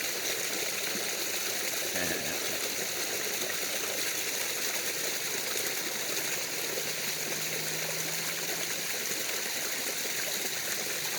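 Pump-fed pond waterfall: water running steadily over rocks, with a brief soft knock about two seconds in.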